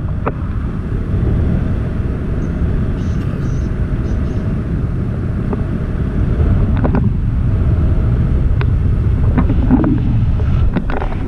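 Wind rushing over a pole-mounted camera's microphone in paraglider flight: a loud, steady low rumble, with a few faint clicks now and then.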